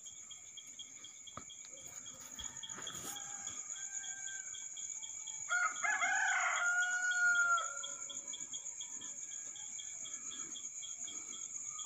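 Crickets and other insects chirping steadily in a continuous night chorus. A little past halfway a rooster crows once for about two seconds, with a fainter crow shortly before it.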